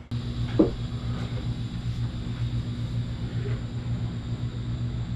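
A steady low machine hum with an even drone, and a single short sharp sound about half a second in.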